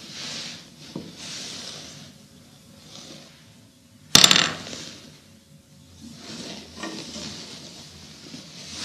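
Wooden chess pieces clattering on a wooden board as a hand knocks into them: one sudden, sharp clatter about four seconds in, with a lighter knock about a second in.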